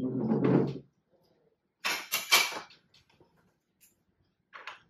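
A person getting up from a table and picking things up: a short loud burst of scraping and knocking about two seconds in, as a chair is pushed back and a wooden cutting board is lifted, followed by a few faint clicks.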